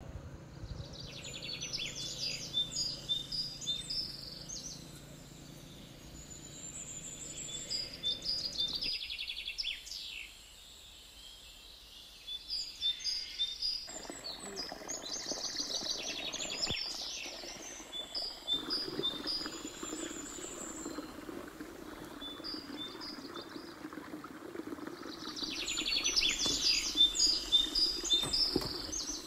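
Birds chirping and singing in short repeated phrases. About halfway through, a steady rush of water pouring from a pipe into a plastic basin comes in under the birdsong.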